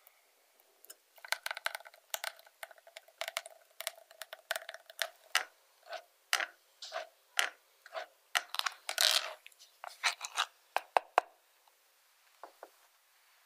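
Silicone spatula pressing strawberry puree through a stainless-steel fine-mesh sieve: quick repeated scraping strokes against the mesh, about two a second, stopping about eleven seconds in.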